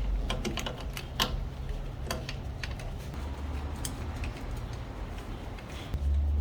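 Irregular small metallic clicks and taps as hand tools and the ignition coil's mounting bolts are handled and fitted. The clicks are thickest in the first two seconds and thin out after that. A low rumble comes in near the end.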